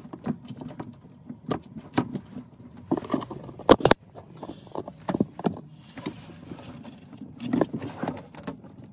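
Irregular clicks and knocks of hands working plastic plumbing fittings, hoses and water heater bypass valves in a camper's plumbing compartment, with a sharp double knock about four seconds in.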